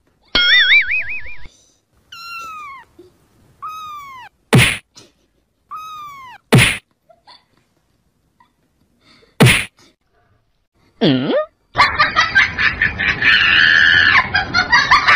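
Cartoon sound effects: a wobbling whistle, then three identical short falling chirps, three sharp slaps, and a swooping tone. A dense, busy burst of sound fills the last few seconds.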